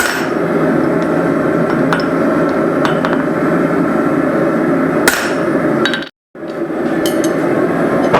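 Blacksmith's hammer striking hot steel on the anvil a few scattered times, with lighter metallic clinks, over a steady loud rushing noise. The loudest strike comes about five seconds in. Everything cuts out for a moment just after six seconds.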